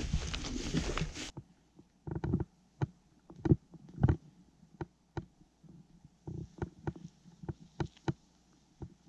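Dry grass brushing loudly against clothing and gear as a person pushes through tall grass, stopping abruptly about a second in. Then quieter, irregular soft thumps and knocks of footfalls on grassy tundra.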